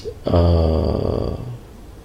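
A man's drawn-out hesitation sound, a held "uhhh", lasting about a second and sliding slightly down in pitch, then low room tone.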